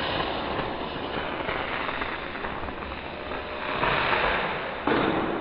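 Lit firework fizzing and crackling, swelling about two-thirds of the way in, then a sudden louder burst near the end.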